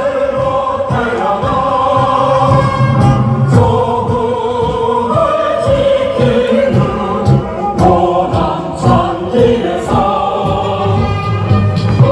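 Music with many voices singing a song together, held notes moving from pitch to pitch.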